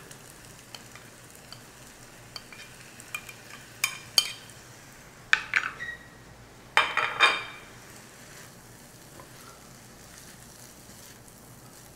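Shrimp rice with tomato confit being tipped into a nonstick frying pan and stirred with a silicone spatula, with a faint sizzle on low heat. Short scrapes and knocks of the spatula and plate come about four, five and seven seconds in.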